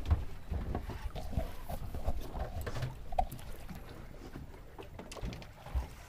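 Water slapping against a small boat's hull, with scattered knocks and thumps on the boat.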